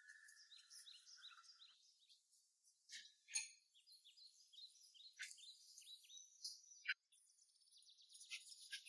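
Faint birds chirping in the background: short, high, falling chirps repeated several times a second, with a few sharp clicks or taps, the loudest about three seconds in.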